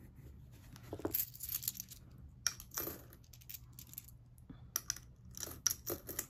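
Coins clinking: a series of light clicks as small coins are picked up and handled in the palm, then dropped into a coin bank that is nearly full.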